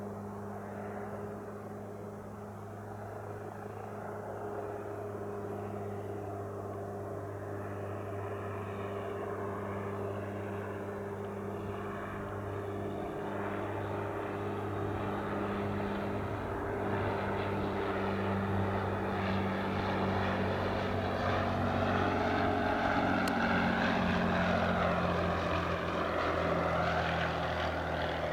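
Single-engine Cessna 182 Skylane's piston engine and propeller droning steadily at reduced power on its landing approach, growing louder as it comes closer.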